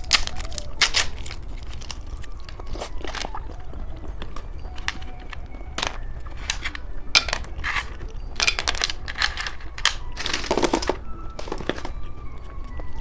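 Repeated crinkles and crunches of candy snacks and their wrappers being handled close to the microphone, over a steady low hum.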